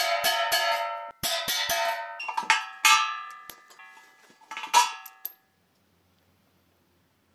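Welded sheet-steel stove body struck repeatedly with a steel hand tool, each blow making the box ring like a bell. A quick run of strikes, then slower, spaced ones, stopping about five seconds in.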